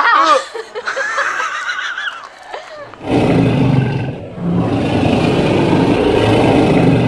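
A high, wavering cry for about two seconds, then an animatronic dinosaur's recorded roar: two long, deep roars starting about three seconds in, with a short break between them.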